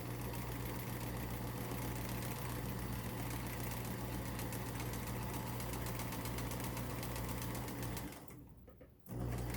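Kenmore 1802 sewing machine running steadily at speed, freshly oiled and being run to spread the new oil. It stops about eight seconds in and starts again a second later.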